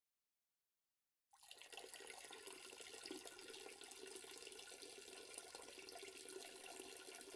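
Faint, steady running water in a washroom, starting after about a second of silence.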